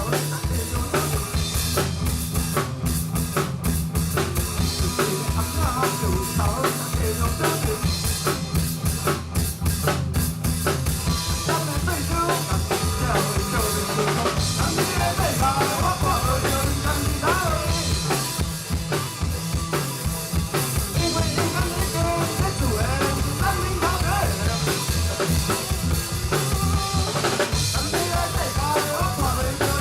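Live band playing a song: a drum kit keeps a steady beat with kick drum and snare under bass, with a wavering melodic line above.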